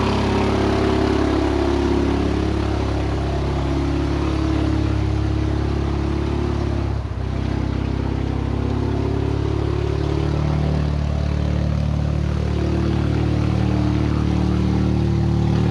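The engine of a 1952 REO army truck running steadily as the truck drives off over snowy ground, its note dropping briefly about seven seconds in.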